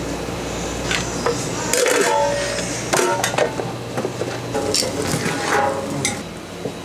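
Kitchen clatter: a series of sharp clinks and knocks of metal pans and utensils, some leaving a short metallic ring, over a steady background hum.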